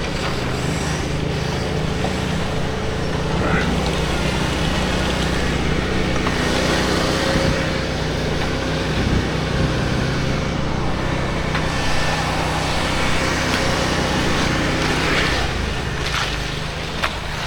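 Engines of concrete-pour machinery running steadily: the concrete mixer truck and power buggies, with a low, continuous engine hum.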